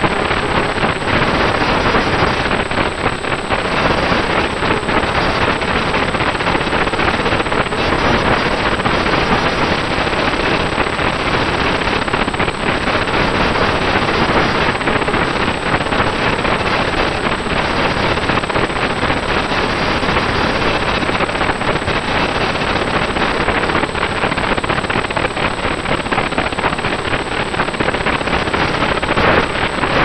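Loud, even rushing noise from a RunCam 2 action camera's built-in microphone in flight, masking the model's motors and propellers, with a thin steady high whine over it. The owner takes it for a hardware or firmware fault in the camera's audio.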